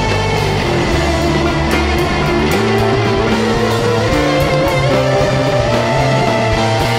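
A rock band playing an instrumental passage live: distorted electric guitars over a moving bass line and drums, with no singing.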